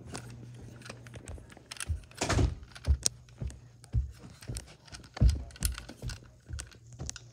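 Footsteps climbing carpeted stairs: dull thuds about two a second from about two seconds in, with light clicks and rattles from a handheld plastic toy blaster.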